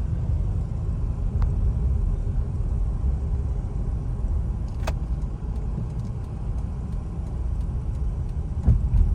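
Steady low rumble of a car being driven, engine and tyre noise heard from inside the cabin, with a single sharp click about five seconds in.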